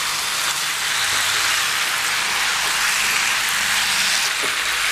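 Masala-coated chicken pieces and onion frying in oil in a pan, giving a steady sizzling hiss as they are sautéed.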